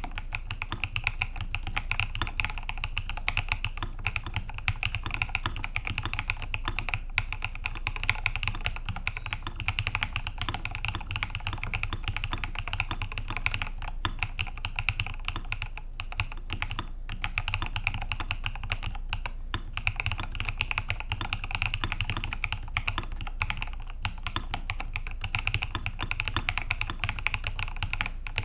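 Fast continuous typing on a mechanical keyboard with lubed NK Cream linear switches on 62g Durock springs and MT3 keycaps: a dense run of keystroke clicks, broken by a couple of brief pauses about two-thirds of the way through.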